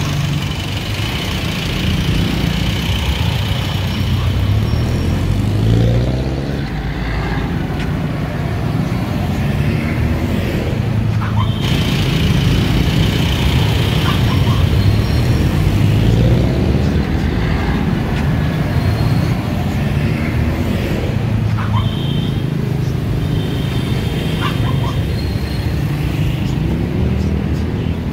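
Street traffic: engines of passing cars, jeepneys and motorcycles running steadily, with several engines rising in pitch as they pull away and accelerate.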